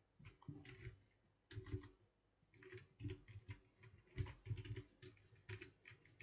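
Computer keyboard being typed on, faint, in several short runs of key presses with brief pauses between them.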